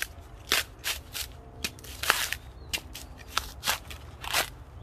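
Fibrous husk being pried and torn off a mature coconut on a sula, an iron husking spike fixed in the ground: a run of short, irregular ripping and cracking sounds, the longest about two seconds in.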